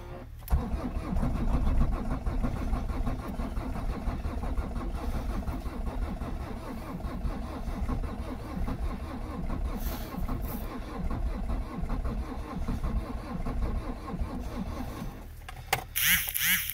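Renault Megane 1.9 diesel's starter motor cranking the engine in −23 °C cold, turning over at a steady rhythm for about fifteen seconds without firing. The oil is too thick for the starter to spin the engine fast enough to start it. A brief high squeal comes just as the cranking stops.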